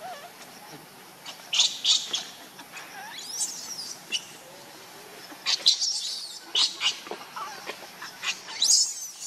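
Baby macaque squealing: several short, high-pitched cries that sweep up and down, the loudest near the end.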